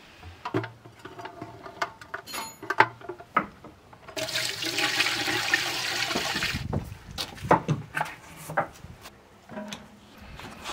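Glass jars with metal lids clinking and knocking as they are set into a steel canning vessel, then water poured in from an enamel bowl, a rushing splash for about two and a half seconds in the middle, followed by more scattered clinks and knocks.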